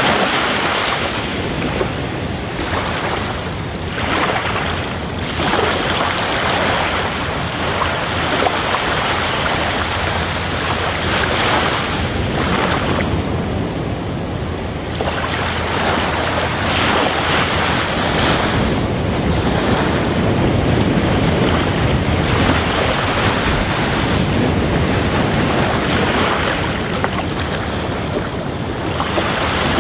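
Aquarium water churning and splashing at the surface where a stream of bubbles breaks, a steady rushing that swells and dips.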